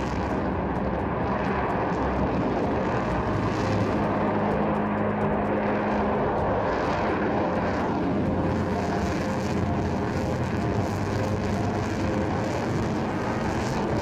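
Su-35S fighter's twin turbofan jet engines running in flight overhead: a steady, even jet noise with a faint hum in it.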